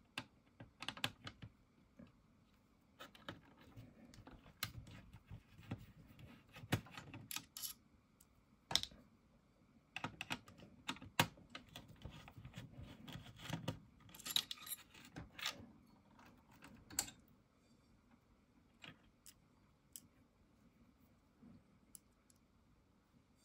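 Screwdriver turning screws in the chassis of an Aiwa AD-3150 cassette deck: irregular small clicks, taps and scrapes of the tool and screws against metal and plastic, thinning out over the last few seconds.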